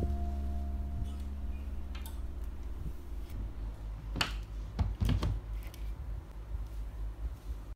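A sustained piano note fades out, then a wardrobe door is handled and closed: a few faint clicks and knocks, the loudest about four seconds in and a quick cluster about a second later, over a low steady hum.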